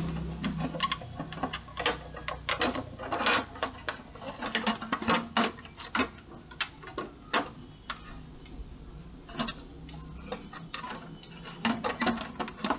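Irregular light clicks and knocks of hard plastic as the Epson L120 printer's frame and cover parts are handled and pressed into place by hand.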